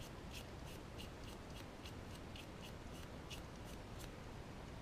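Paintbrush bristles scrubbing a dark wash into the end of a model wagon body: a quick run of short strokes, about three or four a second, that stops about four seconds in.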